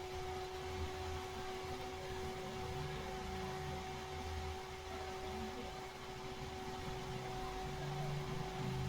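12 V DC cooling fan running steadily at high speed, a constant whir with a steady tone in it, driven near full speed by the temperature controller as the heatsink heats up.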